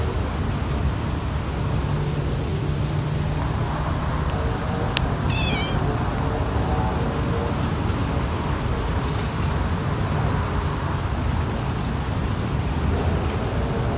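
A kitten gives one short, high meow about five seconds in, just after a sharp click, over a steady low background rumble.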